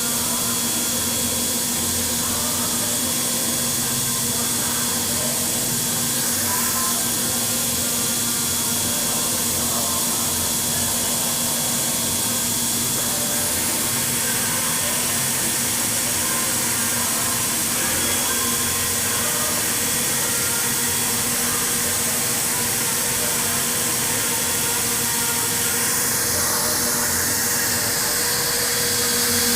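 5-axis CNC milling machine cutting an electrode: a steady spindle hum with a thin high whine over a constant hiss.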